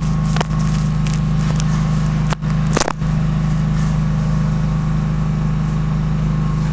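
Homemade concrete mixer running steadily with a low, even hum, with a few short knocks about half a second and two and a half to three seconds in.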